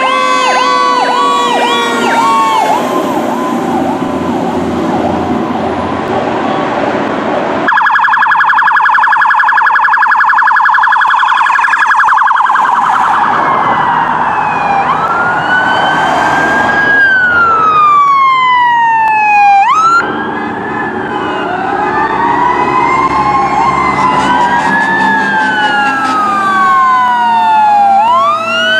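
Emergency-vehicle sirens on responding apparatus. A fast warbling yelp comes first, then a loud rapidly pulsing tone that starts abruptly, then several rising-and-falling wails overlapping one another, over a low engine rumble.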